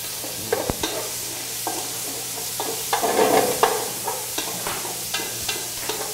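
Cubes of goat meat sizzling in hot oil in a metal sauté pan as they brown. A wooden spoon stirs them, scraping and knocking against the pan every second or so.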